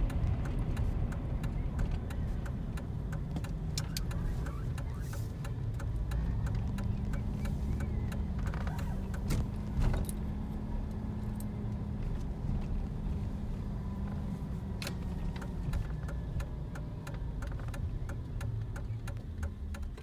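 Car engine and road noise heard inside the cabin while driving at steady speed, with a steady engine hum through the middle. Many small rattles and clicks sound throughout.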